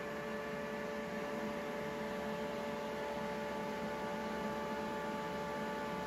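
Steady hum of several fixed tones over a faint hiss, unchanging throughout.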